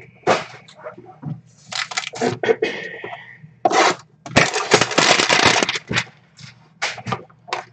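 Crinkling and crackling of the plastic shrink-wrap on a sealed box of football trading cards as it is handled. There are short bursts about two seconds in and a longer, denser stretch about four to six seconds in.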